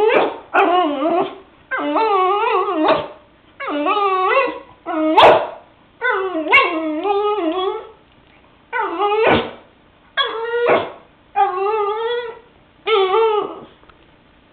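French bulldog whining in a string of about nine drawn-out, wavering calls, each about a second long, with short pauses between them.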